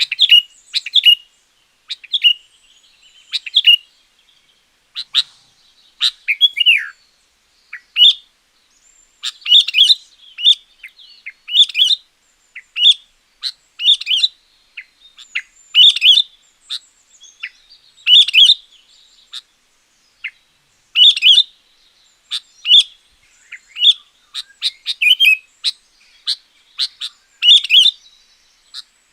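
Sooty-headed bulbul singing loudly: short, clear whistled phrases repeated about every second or two, some sliding downward in pitch.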